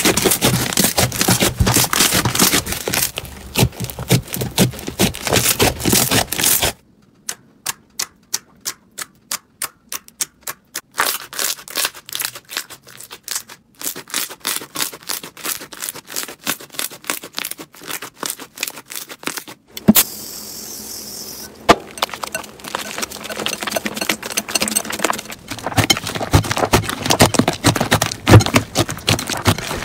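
Slime squeezed and kneaded by hand, crackling and clicking densely as trapped air pops. For a few seconds after the first change the clicks thin out to about four a second. About twenty seconds in there is a brief steady hiss before the crackling resumes.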